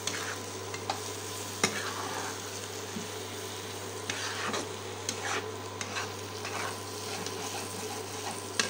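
Spatula stirring and scraping shredded potato and egg as they fry in oil in a frying pan: a steady sizzle with scattered clicks and scrapes of the spatula against the pan. A steady low hum runs underneath.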